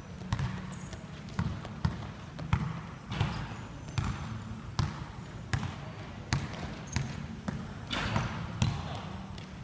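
A basketball bouncing on a hard indoor court floor: a string of irregular thuds, about one to two a second.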